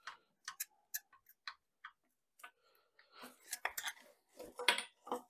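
A few faint metallic clicks as pliers work a hose clamp, then rubbing and scraping as a stuck coolant hose is twisted and worked loose from a metal pipe, starting about three seconds in.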